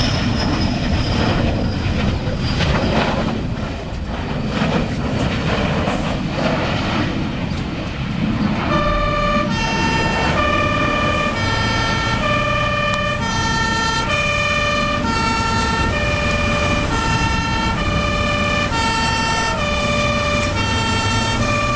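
A loud rushing noise with irregular surges for the first eight seconds or so. Then a two-tone emergency-vehicle siren starts, switching between a high and a low note about every half second over a low rumble.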